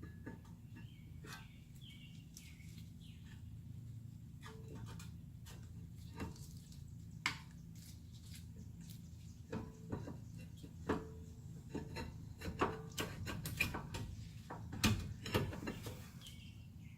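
Scattered light metallic clicks and knocks of rear brake pads and their clips being handled and fitted into the caliper bracket, sparse at first and coming thicker and louder in the second half, over a low steady hum.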